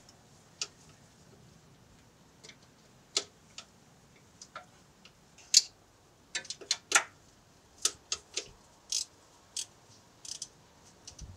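Irregular sharp metallic clicks and clinks of a socket and extension on a transmission bell-housing bolt being worked out by hand, two of them louder a little past the middle.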